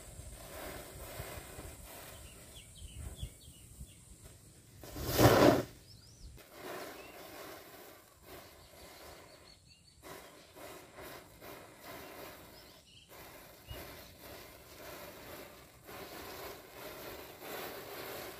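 A chain of standing matchsticks catching fire one after another, with a faint running crackle and hiss. A short, loud rush of noise comes about five seconds in.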